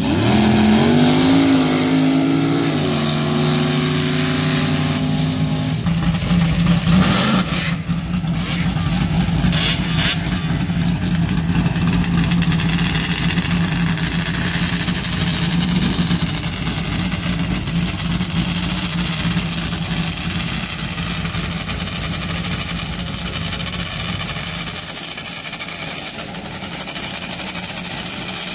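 Sand drag race car engines: one revs up with a rising pitch over the first few seconds, then, after a short loud burst about six to eight seconds in, another race car's engine runs steadily at the start line.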